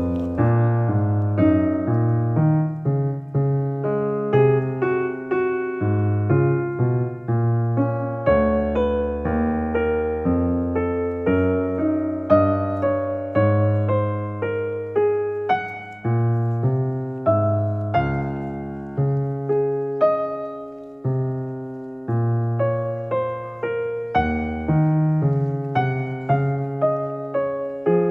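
Solo piano music: a steady flow of struck notes that ring and fade, a melody over lower bass notes.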